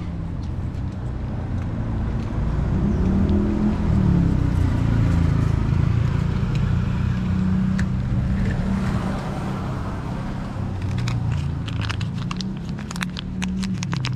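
A motor vehicle's engine running close by, its low hum swelling about three seconds in and easing off later, with a run of sharp crackling clicks in the last few seconds.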